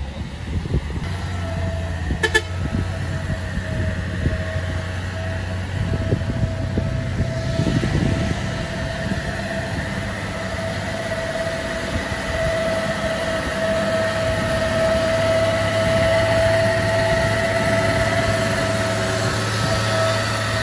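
Loaded diesel dump truck labouring up a hill toward and past the listener, its engine droning low under a steady high whine that grows louder as it comes close. A brief click sounds about two seconds in.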